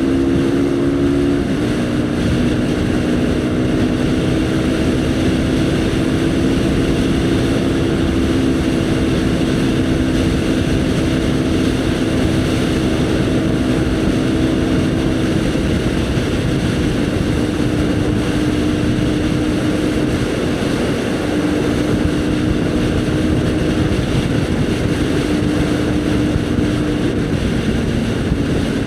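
Haojue NK150's single-cylinder engine running at a steady cruise from the rider's position, with wind rushing past. The engine note drops slightly about a second and a half in and again near the end.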